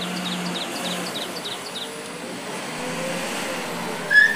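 JCB wheel loader's diesel engine running as it drives with a loaded bucket, a steady low hum. Short high chirps come in the first two seconds, and a louder short high beep sounds near the end.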